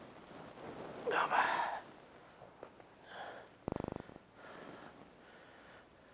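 A person breathing and sniffing close to the microphone, with a loud breath a little over a second in. A short, fast clicking rattle comes a little past halfway.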